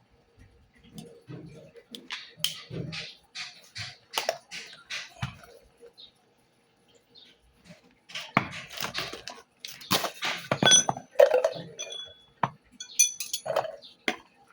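Irregular clatter of hard objects: separate knocks and clinks, pausing briefly midway, then a denser and louder run of knocks with a few short metallic rings.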